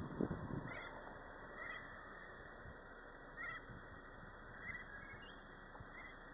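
Car driving slowly over a rough dirt track, heard faintly and muffled: a rumble that fades within the first half second to a low hiss with faint knocks, and a few short faint chirps or squeaks scattered through it.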